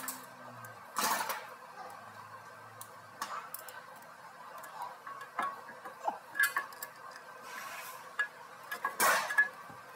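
Scattered metal clinks and clanks from hand tools, a brake caliper piston compression tool driven by a ratchet, being fitted and worked against a rear brake caliper. The loudest clank comes near the end.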